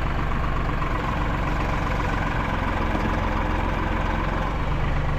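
Tractor engine running steadily as the tractor is driven forward to push against a tree being uprooted.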